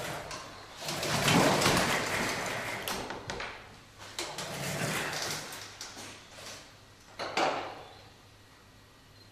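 Six-wheeled Remotec bomb-disposal robot manoeuvring against a concrete step: its drive running and rubber wheels scrubbing, in several swells, the loudest from about one to three seconds in and a short sharp one near the end.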